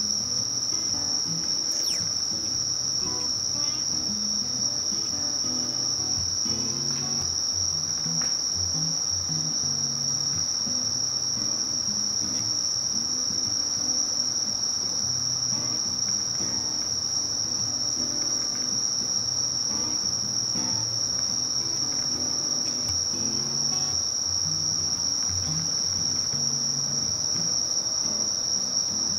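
Steady, unbroken high-pitched trilling of crickets singing, with faint low shifting tones underneath.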